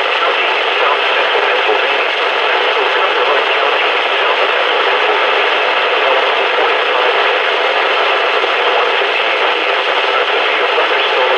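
Steady hiss of static from a NOAA weather radio receiver, with no voice coming through.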